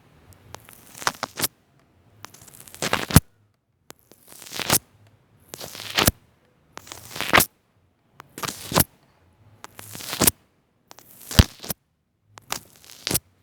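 Store-bought slime being squeezed and stretched close to the microphone, giving crackling, sizzling pops. About nine squeezes, one every second and a half or so, each swelling into a sharp crackle and stopping abruptly.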